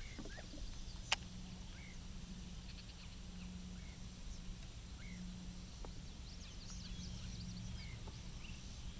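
Outdoor lakeside ambience: short bird chirps repeating about once a second over a steady low hum, with one sharp click about a second in.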